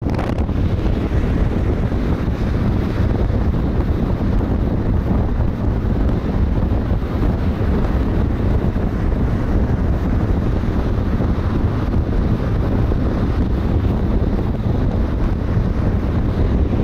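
Wind buffeting the microphone of a camera on a car moving at highway speed, a steady low rumble of wind and road noise.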